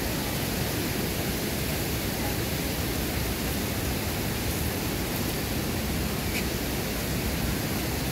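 Steady rush of creek water, an even hiss that holds without a break.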